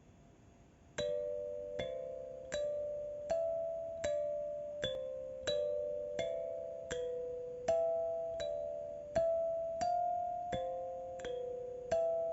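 Music: bell-like chime notes struck at a steady pulse of about one every three-quarters of a second, each a two-note chord that rings and fades, stepping through a slow melody. The notes start about a second in.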